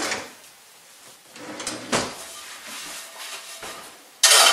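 Kitchen handling noises: a thump, a knock about two seconds in and light clatter, then a louder rasping burst of about half a second near the end as a cast iron skillet is handled on the electric stove.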